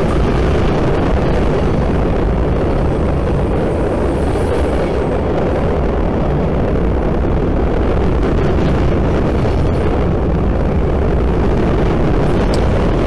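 CSX freight train of steel hopper cars rolling past at close range: a loud, steady rumble of wheels on rail.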